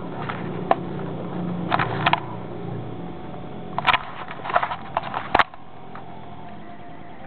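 A sleeping person snoring, low and rough, for the first few seconds, with several short clicks and rustling noises in the middle. About five and a half seconds in, the sound drops suddenly to a steady low hum.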